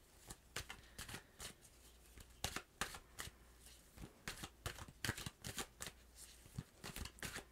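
A deck of tarot cards being shuffled by hand: a faint, irregular stream of quick card flicks and slaps.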